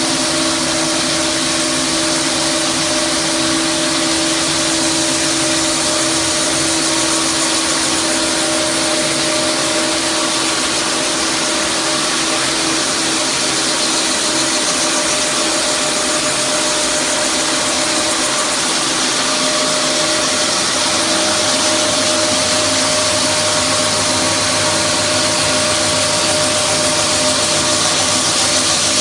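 ROLL WOODY single-disc parquet floor sander coarse-sanding a wooden floor with KG50 ceramic grinding discs. Its motor runs steadily under the hiss of the attached dust-extraction vacuum.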